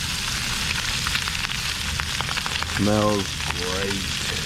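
Small skin-on trout frying in butter in a pan: a steady sizzle with scattered crackles and pops.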